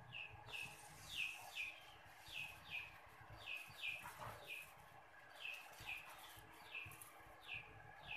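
A small bird chirping over and over, faint short falling notes mostly in pairs.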